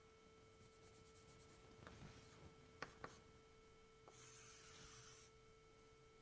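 Chalk on a blackboard: a few light taps and scratches as a word is finished, then about a second of steady scraping from about four seconds in as a long line is drawn. A faint steady hum lies underneath.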